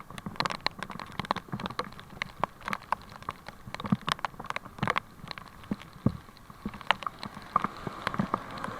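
Heavy rain, with many sharp, irregular raindrop hits close to the microphone over a steady hiss.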